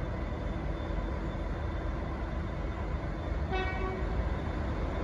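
Diesel locomotive idling with a steady low rumble and a faint whine. About three and a half seconds in comes one short pitched toot, lasting under half a second.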